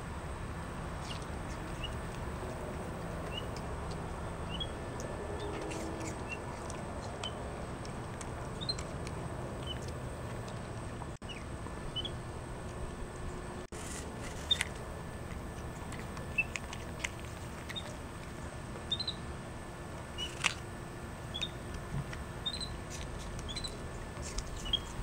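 Capuchin monkey eating an apple: occasional sharp clicks and crunches of chewing and handling the fruit, over a steady low background hum with short high chirps scattered throughout.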